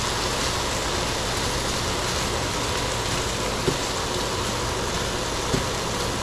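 Kitchen exhaust fan running with a steady rushing noise, with two light clicks about halfway through and near the end.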